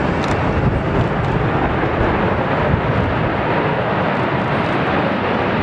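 Airbus A380 jet engines running as the four-engined airliner rolls along the runway: a loud, steady rushing rumble with no change in pitch.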